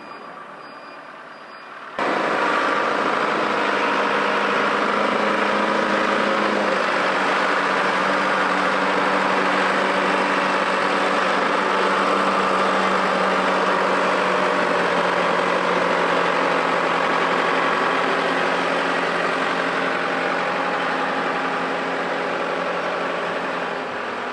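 Forklift engine running steadily, starting abruptly about two seconds in.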